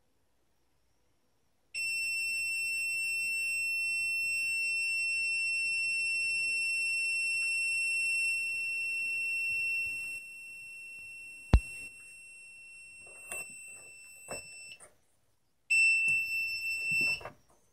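A steady, high-pitched alarm-like tone with overtones sounds while a car battery is held under a 300-amp carbon pile load. A sharp click comes about two-thirds of the way through, then a few knocks, and the tone stops. It returns briefly near the end.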